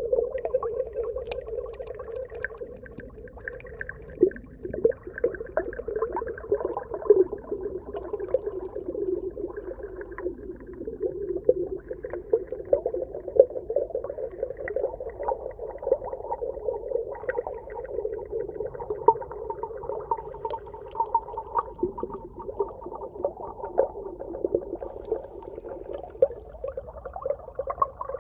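Underwater ambience: a steady, muffled mid-low hum with a dense crackle of short clicks and pops running through it.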